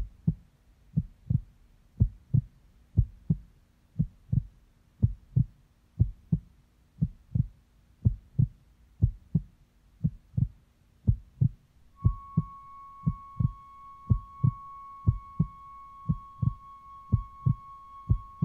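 Sound-art composition played over speakers: low, sharp thumps in pairs about once a second, like a heartbeat. About twelve seconds in, a steady high tone with faint overtones comes in and holds under the thumps.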